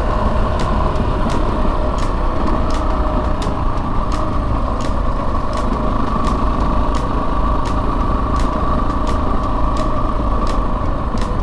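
Yamaha Serow 250's air-cooled single-cylinder engine running steadily under load as the bike climbs a steep paved road, with a low rumble underneath. Faint ticks come about every 0.7 seconds.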